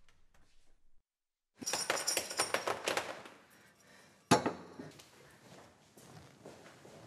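Crockery clinking and rattling for about a second and a half, then one sharp knock as a white plate is set against a shelf.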